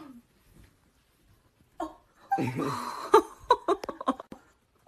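A person laughing and crying out, with several sharp knocks.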